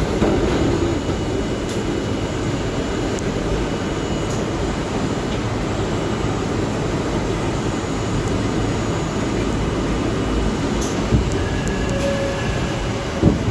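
R32 subway car riding through the tunnel and into a station: a steady rumble and rattle of steel wheels on the rails. Near the end come a brief faint squeal and a couple of sharp knocks.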